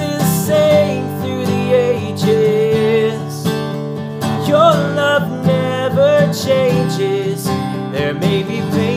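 Gibson acoustic guitar strummed steadily, with a man singing a melody over it.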